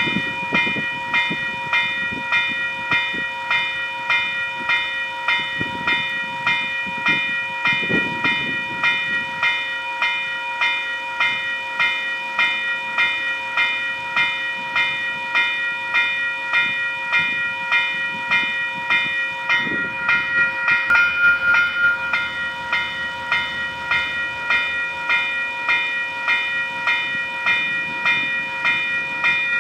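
Electronic level-crossing bell ringing continuously in rapid, evenly repeated dings while the crossing lights flash. There are a few brief low rumbles underneath.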